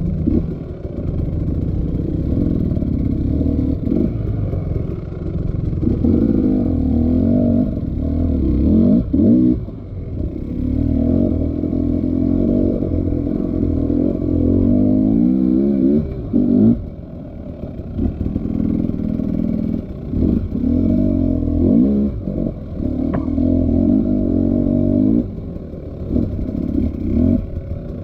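Motorcycle engine being ridden with the throttle opened and closed again and again, its pitch rising and falling in repeated surges with short lulls between.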